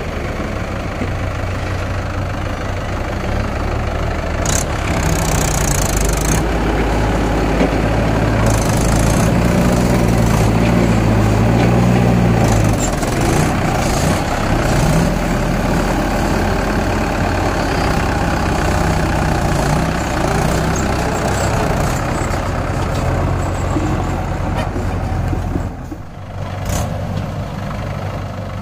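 Mahindra 585 DI tractor's four-cylinder diesel engine working while pulling a fully loaded trolley. The engine note swells and rises and falls around the middle, with a brief drop in loudness near the end.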